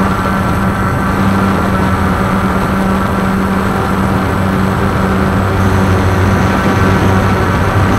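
Walkera QR X350 Pro quadcopter's electric motors and propellers running steadily in flight, heard from the camera it carries: a constant hum with several held tones.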